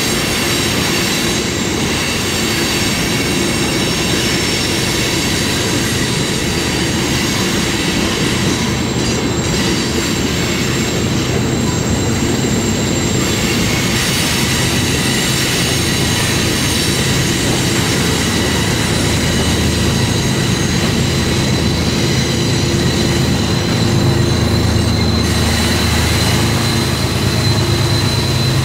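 Freight cars rolling past with steady wheel and rail noise and a thin, high wheel squeal. Over the last few seconds a diesel locomotive's low engine hum grows louder as a mid-train locomotive comes alongside.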